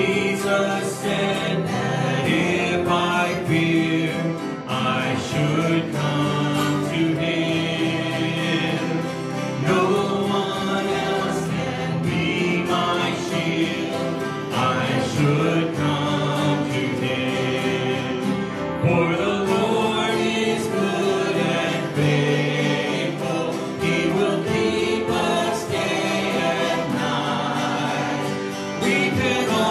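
Live worship song: a man and a woman singing a congregational hymn to two acoustic guitars.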